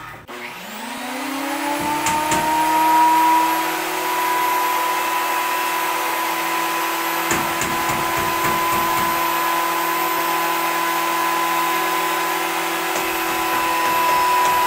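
Electric benchtop planer switched on: the motor speeds up with a rising whine, then runs steadily. The sound roughens briefly about two seconds in and again around seven to nine seconds.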